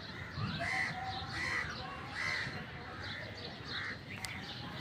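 A bird calling over and over, short harsh calls about one every three quarters of a second, over steady outdoor background noise.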